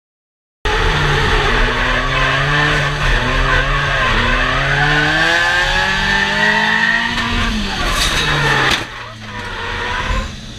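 Drift car's engine revving hard, heard from inside the cabin, its pitch climbing and dropping back several times as the driver works the throttle and gears, over a hiss of squealing tyres. It cuts in suddenly under a second in and drops away sharply near the end.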